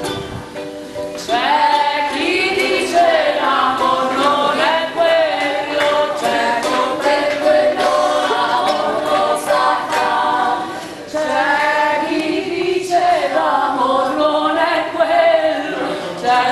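A group of women singing together, with a brief break in the singing about eleven seconds in.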